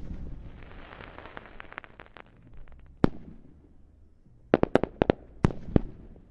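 Fireworks: a fading crackle of many small pops, a single sharp bang about three seconds in, then a rapid string of about eight sharp bangs near the end.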